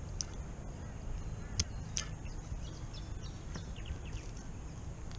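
Steady low outdoor background rumble, with two sharp clicks about one and a half and two seconds in and several faint bird chirps just after them.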